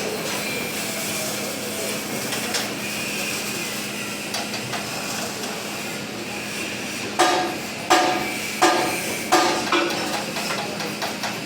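Hammer striking steel: four hard, ringing blows about 0.7 s apart starting about 7 s in, with lighter taps before and after. A steady hiss and low hum run underneath.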